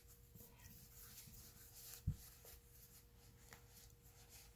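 Faint rustling and rubbing of chunky wool yarn as hands handle a crocheted bag and thread its strap through, with one short, dull low bump about two seconds in.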